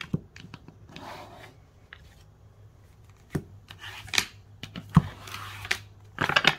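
A Luna Sol tarot deck being cut and handled on a hard tabletop: sharp taps and clicks as the card piles are set down and stacked, and soft sliding swishes. A quick crackling riffle of shuffling comes near the end.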